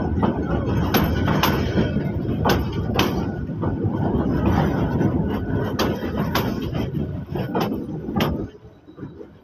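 Passenger train coaches rolling past close by: a steady rumble with sharp clacks as the wheels cross rail joints. The rumble drops off suddenly near the end as the last coach goes by.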